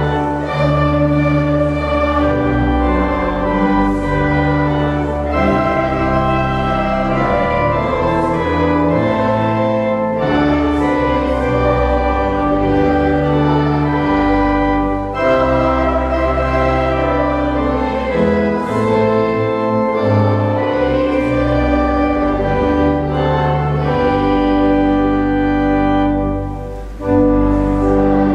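Girls' choir singing with grand piano accompaniment, moving through long held notes. Near the end there is a short drop in level before the next phrase comes in.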